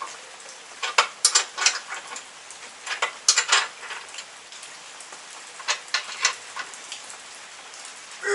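Steady hiss of rain, with three short clusters of metallic clicks and clinks, about a second in, around three seconds and around six seconds, from two 17 mm spanners tightening the bolts and nuts of a turn-signal bracket on a motorcycle's front fork.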